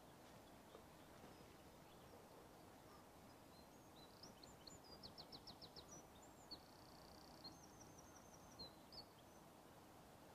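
Near silence with faint outdoor ambience; about four seconds in a small songbird sings a faint phrase of chirps, a quick run of notes and a short trill, lasting about five seconds.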